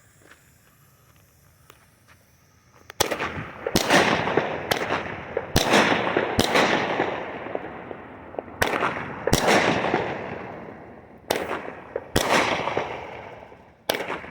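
A 200-gram consumer firework cake, the Phantom Fireworks Pint Size Powerhouse, firing its shots. It is quiet for nearly three seconds, then comes a string of about ten sharp launches and bursts, roughly one a second with two short pauses. Each is followed by a fading rush of glitter noise.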